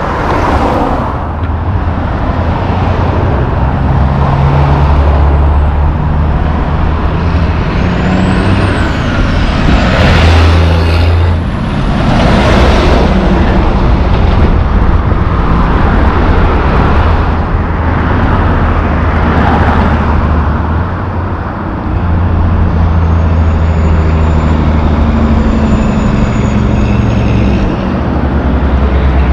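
Highway traffic: heavy diesel trucks, among them a tandem-axle dump truck and a loaded logging truck, pass along with cars, engines running low and steady under tyre noise. A thin high squeal glides about a third of the way in and again near the end.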